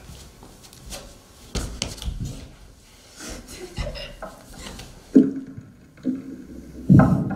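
Plastic sheeting covering a stage floor rustling and crinkling as two people move, kneel and shift their weight on it, with scattered knocks from knees and feet. A few brief vocal sounds come in the second half, the loudest near the end.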